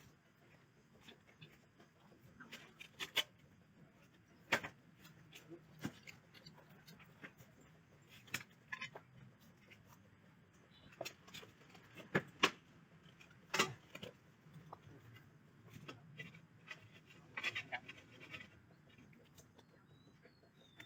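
Irregular light clicks and knocks of tools and parts being handled during an air-conditioner installation, over a faint low hum.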